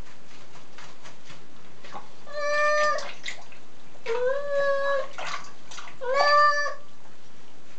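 Ginger-and-white tabby cat meowing three times, drawn-out calls about two seconds apart, while it is washed standing in a basin of water; soft splashing of the water in between.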